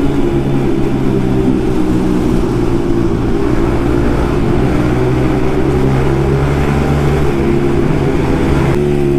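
Yamaha MT-15's single-cylinder engine running steadily through an Akrapovic carbon exhaust with the dB killer removed. The sound changes abruptly near the end.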